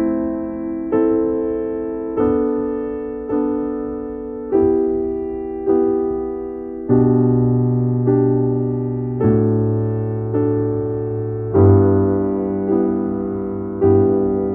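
Background piano music: slow chords, a new one struck about every second and left to ring out.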